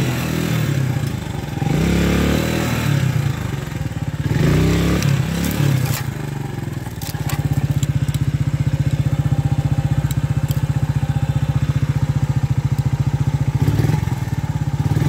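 Mondial 150 KT motorcycle's single-cylinder engine revving up and down in several blips over the first seven seconds, then running steadily at low revs. A few sharp clatters come from the bike partway through.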